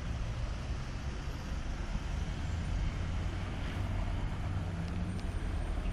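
Steady low engine rumble with a constant hum, mixed with general vehicle noise.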